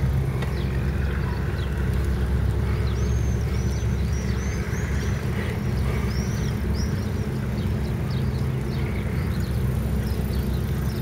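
Steady low wind rumble on the microphone while cycling along the seafront. From about three seconds in, many small birds give quick, high-pitched chirps.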